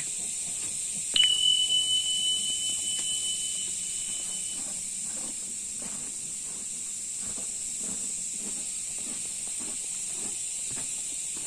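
A steady high-pitched hiss, with a shrill steady tone that starts with a click about a second in and fades out after about three seconds, over faint irregular rustling and knocking.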